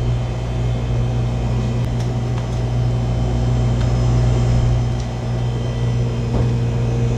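Steady hum of kitchen machinery: a low drone with several steady tones above it, unchanging throughout.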